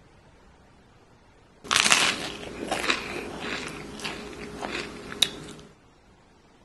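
Eating sound effect of crunching bites and chewing, starting and stopping abruptly and lasting about four seconds, with a sharp click near the end.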